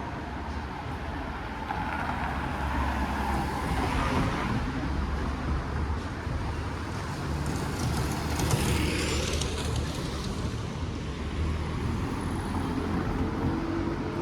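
Street traffic: a steady low engine rumble with vehicles passing, one about three seconds in and a louder, hissier one about eight seconds in.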